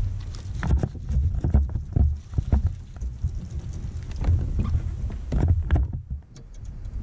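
Wind rumbling on the microphone while a fish is fought and brought to a fishing kayak, with irregular knocks and clatters of rod, reel and hull handling. There is a short lull about six seconds in.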